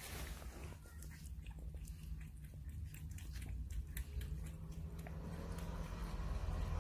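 A cat lapping water from a paper cup: irregular short wet clicks, about two or three a second, over a low steady hum.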